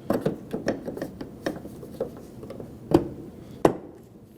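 New plastic exterior door handle being worked into the handle opening of a car door, giving a quick run of light clicks and knocks, with two louder knocks about three seconds in.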